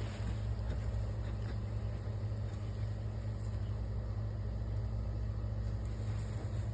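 A steady low mechanical hum, like a motor or engine running, unchanging in pitch.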